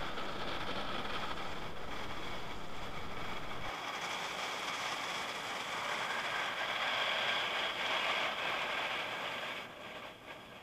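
An automatic car wash heard from inside the car: a steady rush of water spray and rotating brushes scrubbing foam over the windows and body. The rushing drops off near the end.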